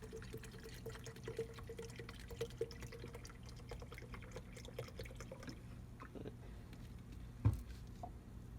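Liquid being poured and dripping as ferric chloride acid and water are mixed for etching, with many small drip ticks. A single sharp knock near the end.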